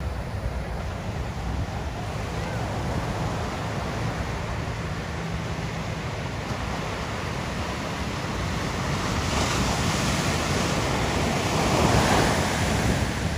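Small ocean waves breaking and surf washing up the beach, with wind rumbling on the microphone. The wash swells louder over the last few seconds, then eases.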